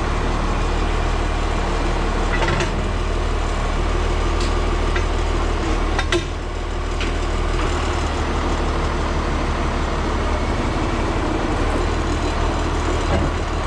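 A vehicle engine running steadily, with a few short clicks and rattles over it.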